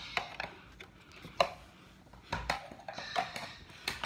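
Scattered knocks and clicks of things being handled and set down on a wooden floor, with a sharper knock about a second and a half in and another near the end.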